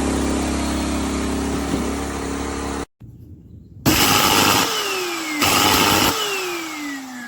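Workshop dust extractor's motor running steadily. After an abrupt cut, a motor is switched on twice in short bursts, each followed by a falling whine as it spins down.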